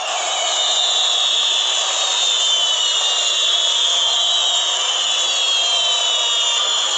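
Fireworks hissing and whistling steadily, with several whistles slowly falling in pitch together and no bangs.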